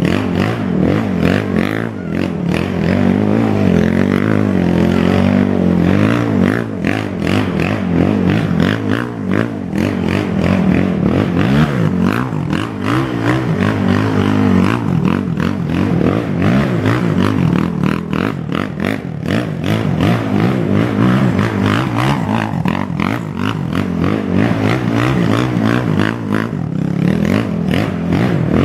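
2006 Honda TRX450R quad's single-cylinder four-stroke engine revving up and down over and over as it spins donuts in dirt. Its tyres churn and throw dirt, adding a steady run of small clicks and rattles.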